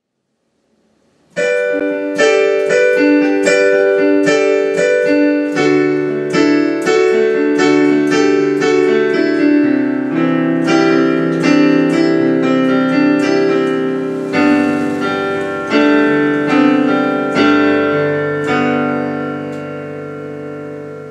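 Digital piano played with both hands, starting about a second in: full chords struck one after another and left ringing, the playing fading away near the end.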